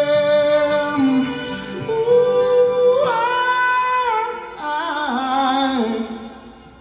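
Live acoustic music: a man singing long, wavering held notes with violin and acoustic guitar. The music dies away near the end.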